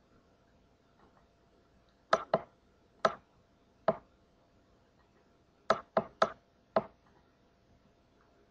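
Sharp clicks at the computer, eight in all and spaced unevenly: two about two seconds in, single ones about a second apart after that, then four close together near the end.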